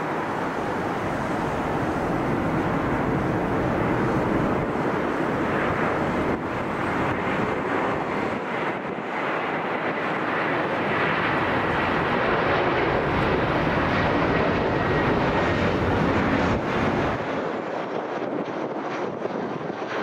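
Jet airliner on final approach to land passing close overhead. The engine noise swells over several seconds and is loudest about two-thirds of the way through, with a faint high whine. Its deep rumble then drops away near the end as the aircraft moves off.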